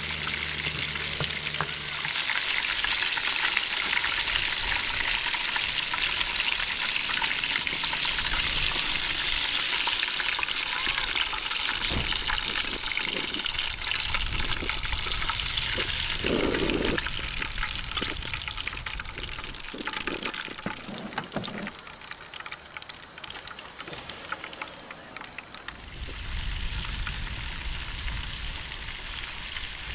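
Chicken deep-frying in hot oil: a steady, dense sizzle that swells about two seconds in and eases off about two-thirds of the way through. A few dull knocks come in the middle.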